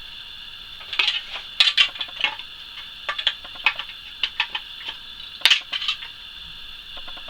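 Irregular sharp clicks, knocks and light clatter of a hard injection-moulded plastic part being handled and trimmed of its moulding sprues with cutters. The loudest clicks come about a second in and again near the middle.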